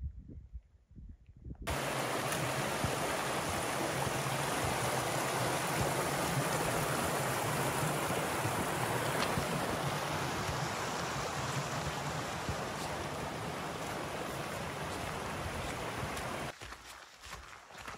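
Shallow, rocky mountain stream rushing over stones, a steady dense roar. It starts abruptly about two seconds in and drops away sharply near the end.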